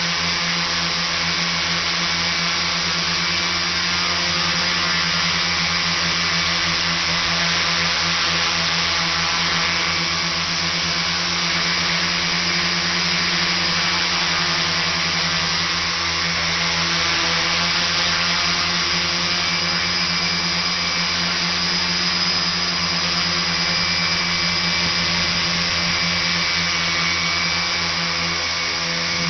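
Tricopter's electric motors and propellers whining steadily in flight, a constant hum with several held tones and no change in speed.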